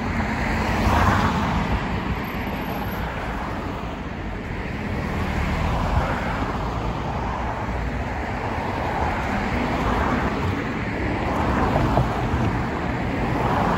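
Street traffic: a steady rush of road noise, with several cars passing one after another and swelling and fading as they go by.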